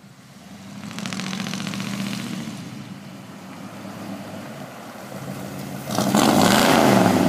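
Ford 390 V8 in a 1965 Galaxie 500 running as the car approaches, picking up about a second in, then revving up hard and loud as it accelerates past about six seconds in.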